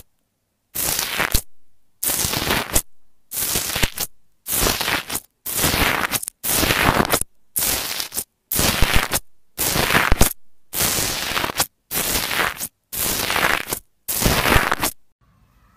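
Fingers pressing into a bubbly green foam slime, each press giving a loud burst of crackling from its foamy surface. The presses come about once a second, fourteen or so in all, and stop about a second before the end.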